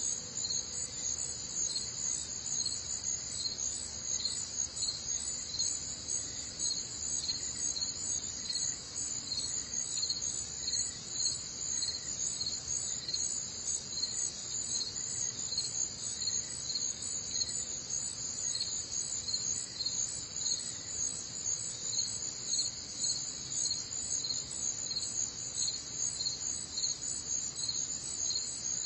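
Steady chorus of chirping insects, a high, evenly pulsing trill that goes on without a break.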